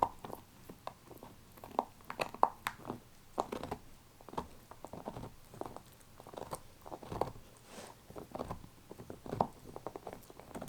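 A dog chewing and gnawing on a beef neck bone: irregular bursts of sharp crunches and clicks of teeth on bone.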